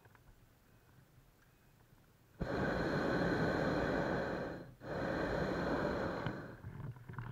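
Hot-air balloon's propane burner firing in two blasts: it starts abruptly about two and a half seconds in, breaks off briefly, then fires again and fades out near the end.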